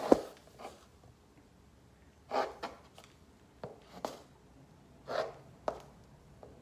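Stiletto heels of pink patent Christian Louboutin pumps knocking on a hard floor in slow walking steps. There are about ten irregularly spaced heel strikes, with the loudest right at the start.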